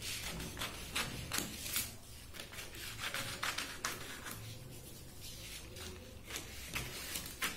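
Scissors cutting through a sheet of stiff paper: a run of irregular snips, closer together and louder in the first two seconds.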